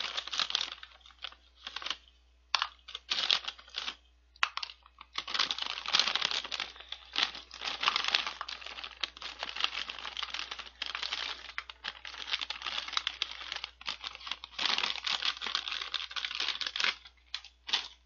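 A plastic snack bag of chocolate star snacks crinkling as it is opened and handled, then tipped so the small pieces pour out with a dense crackly rattle. It comes in bouts that stop and start several times.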